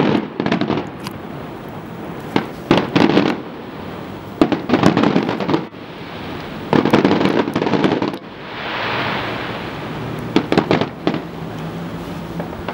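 Aerial fireworks exploding in clusters of sharp, crackling bangs about every two seconds, with a rushing hiss about eight seconds in before another volley.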